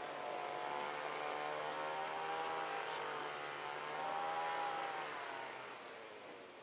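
An engine running, its pitch slowly wavering up and down, then fading away over the last second or so.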